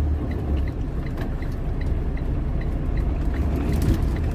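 Semi truck engine running at low speed, heard from inside the cab as a steady low drone. A light, even ticking repeats about two and a half times a second, and a few rattles come near the end.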